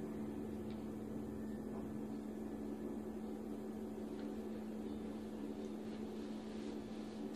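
Steady low hum with a faint hiss of room noise, and now and then a faint rustle of silk cloth as a saree is unfolded and handled.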